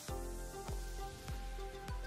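Background music with a steady beat; a deep bass and a drum hit about every 0.6 seconds come in right at the start.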